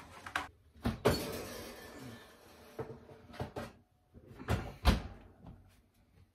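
Kitchen wall oven being opened with a clunk and a baking pan drawn out off the rack, a fading hiss after the door opens, then a heavier thump just before five seconds in as the oven door shuts.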